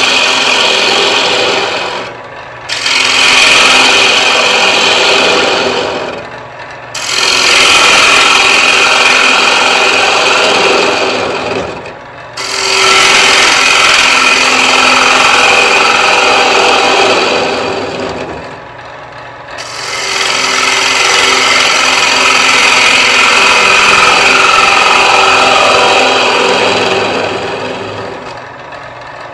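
A 3/8-inch bowl gouge cutting the inside of a spinning wood bowl blank on a lathe: a loud shearing hiss in about five passes of several seconds each, with brief quieter lulls between and a fade near the end. This is the final part of the three-part bowl cut, the linear push across the bottom to hollow the interior.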